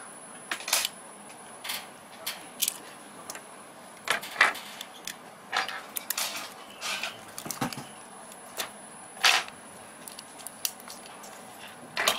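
Small sharp plastic clicks and snaps, irregular and a dozen or so in all, as a phone's circuit board and flex cables are worked loose from its plastic housing by hand. A quick run of clicks near the end comes as the board comes free of the case.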